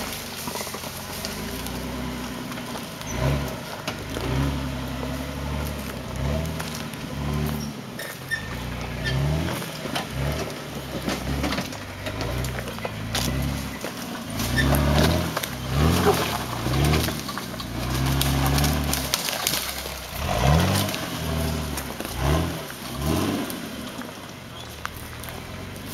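Jeep Wrangler engine revving up and falling back again and again in short bursts of throttle as it crawls over boulders, many rises in pitch close together in the middle and later part.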